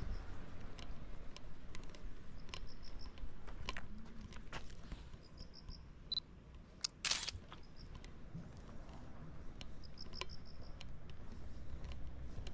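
Insect chirping in short trains of quick pulses, several times, over a low steady outdoor rumble with scattered faint clicks. A short loud noisy burst comes about seven seconds in.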